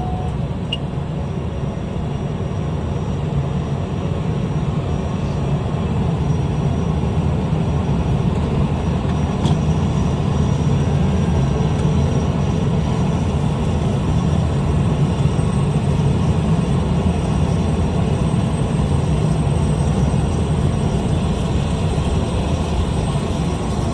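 Small plane's engine and propeller making a steady, even drone.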